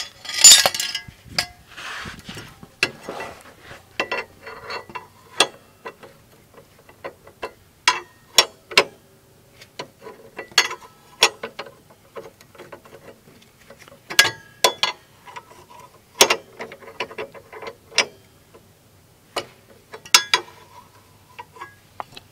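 Wrench working a nut on a control arm or tie rod end: irregular sharp metallic clicks and clinks, some in quick pairs, with a louder rustling and clattering at the start.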